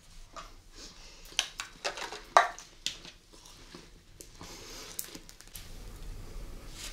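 Close-miked chewing of candy: a string of sharp, crunchy bites and crackles, loudest about two and a half seconds in, settling into softer chewing.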